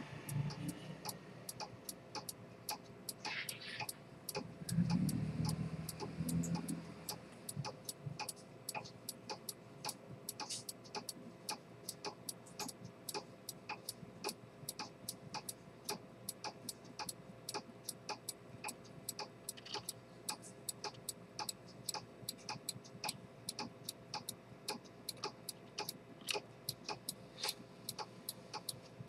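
Pocket chronometer with an Earnshaw detent escapement and a helical balance spring, ticking steadily: a few even, sharp ticks a second. A brief low rumble comes about five seconds in.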